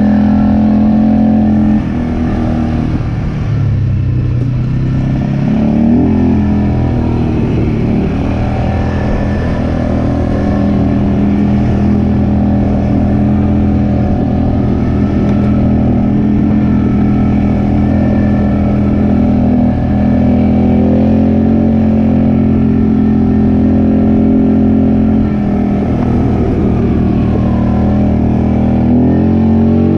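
An off-road vehicle's engine running steadily while riding. Its pitch dips a couple of seconds in, climbs back around six seconds, and rises again near the end as the throttle changes.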